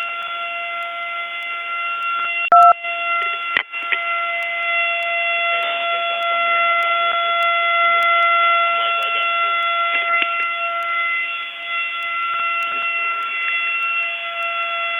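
Lunk alarm sounding as one continuous steady tone with a buzzy stack of overtones, heard through a phone line. A loud crackle breaks in about two and a half seconds in, with a brief dropout a second later.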